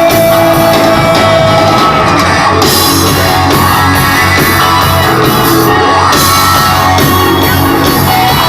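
Rock band playing, loud and continuous, with shouted voices over the music.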